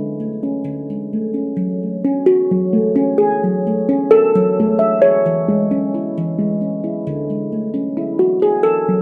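Veritas stainless steel handpan in F# Pygmy, played by hand: overlapping notes ring on and sustain, with sharper accented strikes about two, four and five seconds in and again near the end.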